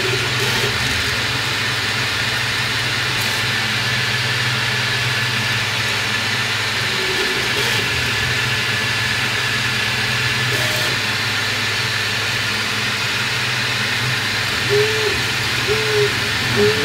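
Sovol SV06 3D printer running a print: a steady fan whir over a low hum, with short pitched whines from its stepper motors as the print head moves, several of them near the end.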